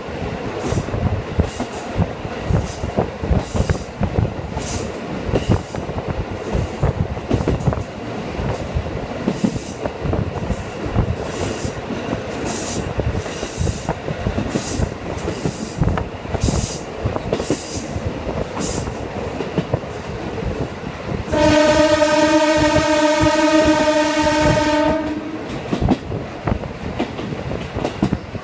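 Inside a KiHa 40 diesel railcar running along the line: steady engine and wheel noise with regular rail-joint clicks. About 21 seconds in, the railcar's horn sounds one long, steady blast of about four seconds.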